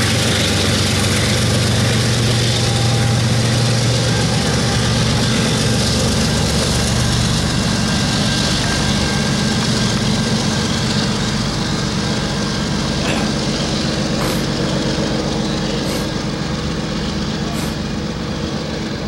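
BNSF freight train passing: diesel locomotive engines running and a line of covered hopper cars rolling by with steady wheel-on-rail noise. A few sharp clicks come in the second half, about one every second and a half.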